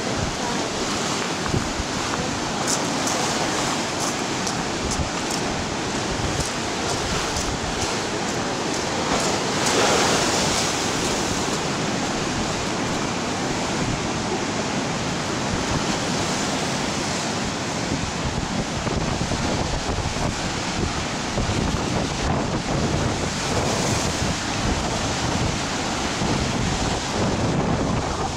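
Stormy sea surf breaking and washing on the shore in a continuous rush, with one louder wave about ten seconds in. Wind buffets the microphone throughout with a low rumble.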